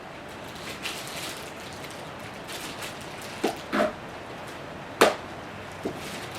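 Cable ties being cut and packaging handled around a new scooter deck: light rustling with a few short knocks and one sharp snip-like click about five seconds in.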